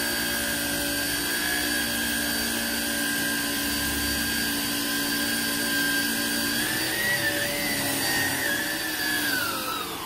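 Hoover ONEPWR Evolve Pet cordless upright vacuum running on its highest power setting with the brush roll on: a steady high motor whine over rushing airflow. Near the end it winds down with a falling whine as it is switched off.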